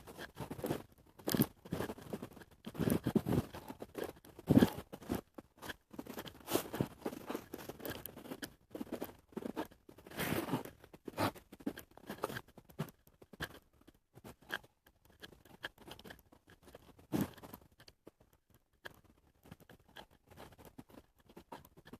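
Irregular crunching and scraping sounds, loudest in the first half and thinning out to faint crunches near the end.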